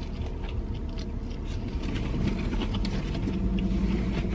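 Steady low rumble of a car engine running, swelling slightly near the end, with faint small clicks over it.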